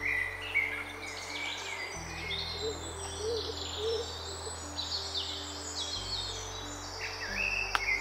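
Many small birds singing and chirping in quick overlapping phrases, over slow sustained low notes of background music that change about every few seconds. A single sharp click near the end.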